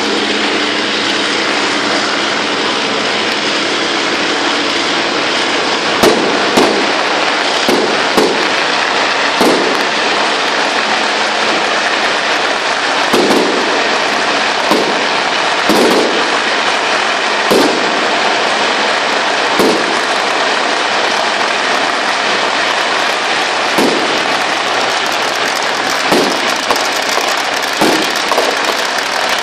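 Strings of firecrackers crackling without a break, with louder single bangs every second or two from about six seconds in.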